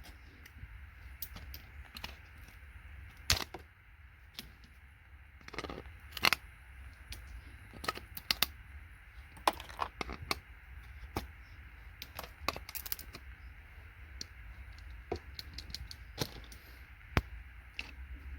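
Irregular sharp cracks and clicks of electronic components being snapped and pried off circuit boards with hand tools. A few louder cracks stand out among the lighter clicks.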